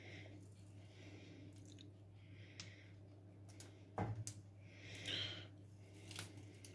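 Faint squishing and handling of a hand-squeezed cookie press as spritz-cookie dough is piped onto a parchment-lined tray, with a few small clicks and a soft knock about four seconds in, over a low steady hum.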